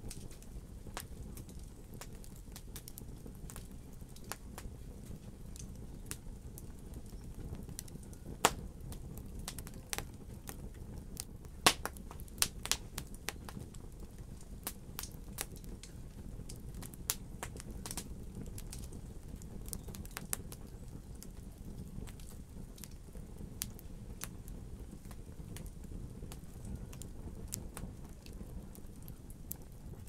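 Wood logs burning in a fireplace, crackling and popping steadily over a low, even rumble. There are sharp pops about 8 seconds in and a quick cluster of them around 12 seconds.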